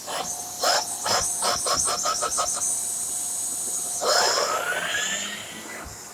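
Hard plastic parts of a Shark corded vacuum cleaner clicking and knocking as an attachment is fitted. About four seconds in, a whoosh is followed by a whine that rises in pitch as the motor spins up, then fades.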